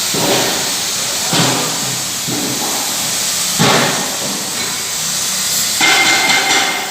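Oxy-fuel cutting torch hissing steadily as it cuts mild steel, with several dull knocks or clanks; the last, near the end, rings briefly.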